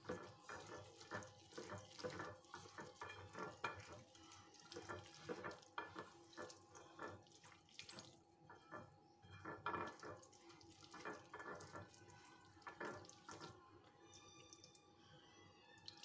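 Fingers squishing and mixing a wet herb-and-oil chermoula with water on a ceramic plate: faint, irregular wet squelches that thin out about two seconds before the end.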